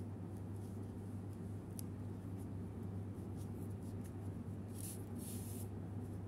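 Faint scratchy rustling of yarn being handled and drawn through a small crochet piece, with two brief hissing rubs about five seconds in as the yarn is pulled through. Under it runs a steady low hum.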